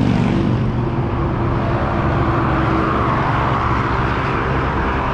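Bicycle rear hub ticking rapidly as the rider coasts, the freewheel ratchet giving the only noise from the otherwise quiet cruiser. It sounds over a steady hiss of traffic and wind.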